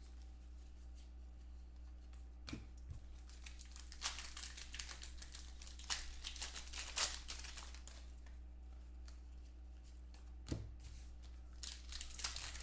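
Foil trading-card pack wrapper crinkling and tearing open, with scattered crackles as the cards are handled, over a steady low electrical hum.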